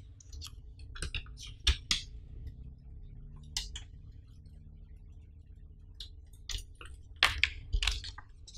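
Stiff paper crackling and rustling as a folded user manual is handled and unfolded, with sharp clicks and light taps from the cardboard box and plastic tray. The sounds come in two bunches, one about a second in and another near the end.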